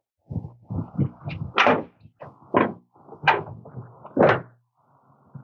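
The hood of a 1985 Ford F-150 being unlatched and lifted open: a series of metal clunks and scrapes, several of them sharp, about a second apart.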